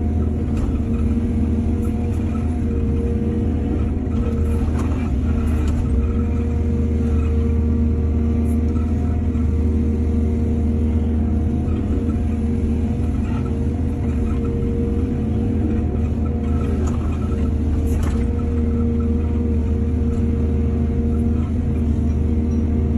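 Excavator's diesel engine running steadily under hydraulic load, with a few short knocks a few seconds in and again near the end.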